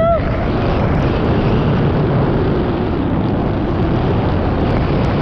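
Steady wind buffeting a helmet-mounted camera's microphone, mixed with the rumble of mountain bike tyres on a rough dirt trail during a fast downhill run.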